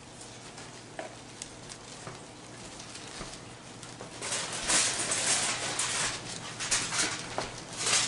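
Clear plastic bag of shredded mozzarella crinkling as the cheese is shaken out by hand, with a few small clicks at first, then a louder, dense crinkling from about four seconds in.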